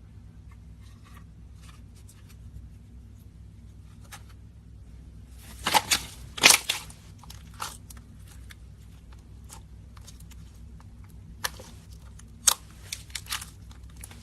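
Slime being squeezed and pressed by hand, giving off sharp crackling and popping clicks. The clicks come in two louder clusters, about six seconds in and again about twelve seconds in, over a faint low hum.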